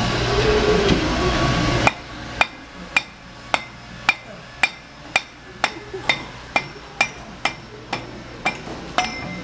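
Steady metallic hammer blows, about two a second, on the T-handle of a steel mud gate valve, driving the handle off the valve stem. The blows start about two seconds in, after a stretch of louder noise.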